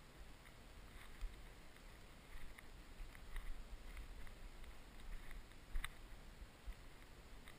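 Low wind rumble on the microphone, with faint scattered crunches and crackles of steps through dry cut stubble; the sharpest crackle comes near the end.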